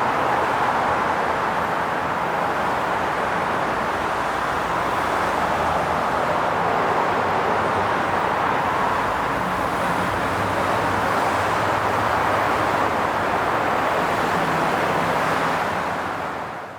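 Steady highway traffic noise: tyre and engine sound of passing vehicles blended into one continuous wash, with a low engine hum underneath. It fades out just before the end.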